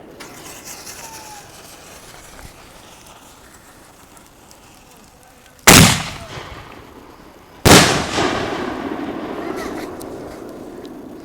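Fireworks going off: two sharp bangs about two seconds apart, the second trailing into a crackle that fades away over several seconds.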